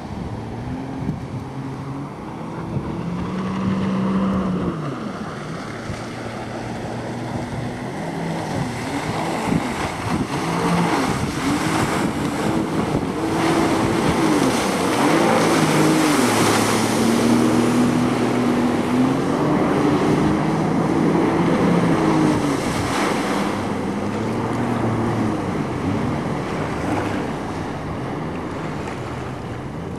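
A Sea-Doo personal watercraft's engine running at speed, its pitch rising and falling as the rider works the throttle and turns, loudest as it passes closest about halfway through. Under the engine runs the hiss of the spray thrown up by its jet wake.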